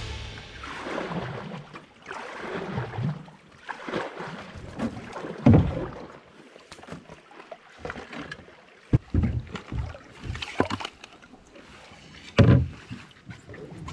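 Canoe paddling in shallow water: the paddle swishes and splashes in irregular strokes, with a few sharp knocks of the paddle against the canoe's hull, the loudest near the end as the canoe comes to the bank.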